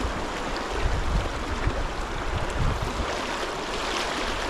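Trout stream rushing over a rocky riffle, a steady, even hiss of flowing water, with some low rumbling on the microphone in the first few seconds.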